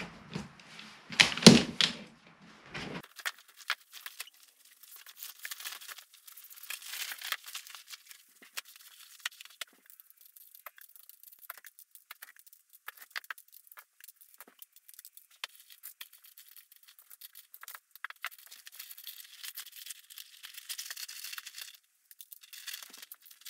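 Camping cot being taken down and packed: a couple of loud knocks of the frame bars about a second in, then many light clicks and clacks as the folding metal poles are handled. The nylon cot fabric rustles as it is stuffed into its carry bag.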